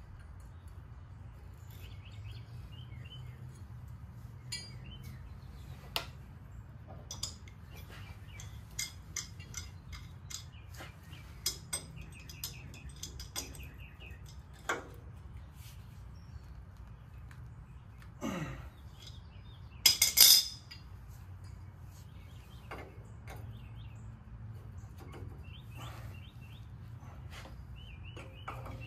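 Scattered metallic clicks and clinks of hand tools on metal, at the mower's hydraulic hose fittings, with one louder, brief clatter about twenty seconds in. Birds chirp in the background.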